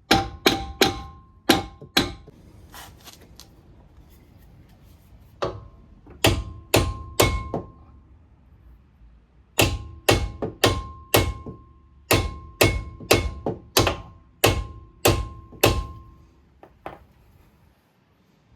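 Hammer tapping a brake pad retaining pin into a Porsche 986 front brake caliper: sharp metal-on-metal strikes, each with a short ring. They come in three runs of quick taps, the last and longest about a dozen strikes, then two light taps near the end.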